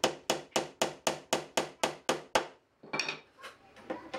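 Claw hammer striking a wooden strip in a quick, even run of blows, about four a second, that stops a little over two seconds in. A few softer wooden knocks and clatters follow near the end as the hammer is set down on the bench.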